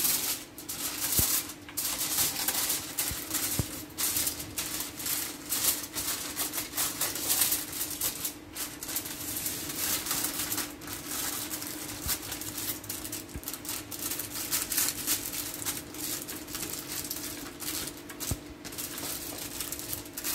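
Aluminium foil crinkling in quick, irregular crackles as it is folded and pressed tightly around a fish.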